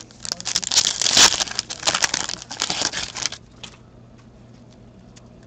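Fleer Ultra hockey card pack wrapper crinkling as it is crumpled in the hands. The crinkling lasts about three seconds and then stops.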